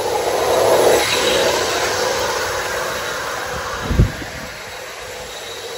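O gauge model InterCity 125 HST running with its ESU LokSound decoder playing diesel power-car sound through its speaker, together with the wheels running on the track, loudest about a second in as the train passes close and then fading away. A brief low thump about four seconds in.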